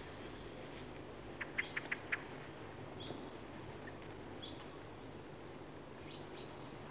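Faint night-time wildlife ambience: short high chirps repeating about every one and a half seconds, with a quick run of four or five sharp ticks about one and a half seconds in, over a low steady hiss and hum.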